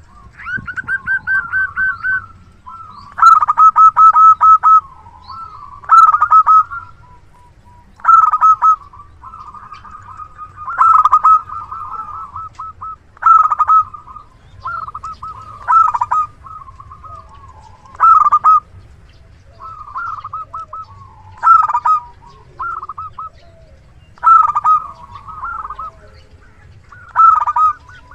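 Zebra dove (perkutut) cooing over and over: about a dozen loud phrases, each a quick run of short staccato notes, coming every two to three seconds.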